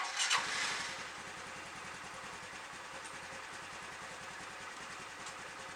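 Water-cooled four-stroke Honda scooter engine fired on the electric starter, with no throttle, after two weeks unused. It catches within about half a second and settles into a steady idle.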